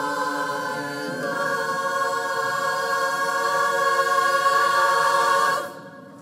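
Women's barbershop chorus singing a cappella, moving about a second in to the closing chord on the word "love" and holding it, then cutting off together near the end.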